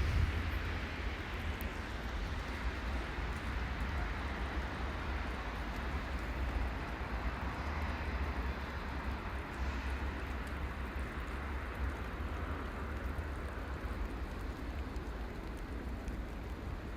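Steady outdoor noise: wind rumbling on the microphone under an even hiss.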